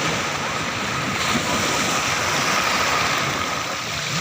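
Sea surf washing on the shore: a steady, even rush of water.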